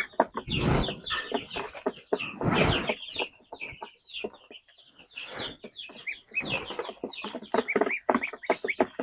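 Chickens clucking and calling in many short, quick notes, with a few brief bursts of noise among them and a quieter moment near the middle.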